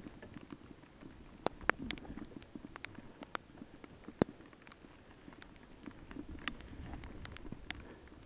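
Mountain bike rolling over rough trail: irregular sharp clicks and knocks from the bike rattling, over a low rumble of the tyres on dirt.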